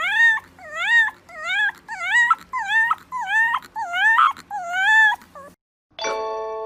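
A fluffy white puppy with its head raised gives a run of short, high-pitched yips, about ten in five seconds, each call dipping and then rising in pitch. After a brief gap, bell-like chime tones start near the end.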